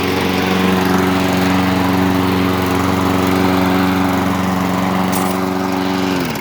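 Troy-Bilt walk-behind mower's single-cylinder Briggs & Stratton 6.75 gross torque engine running steadily at speed. Right at the end it is shut off, its pitch falling as it stops.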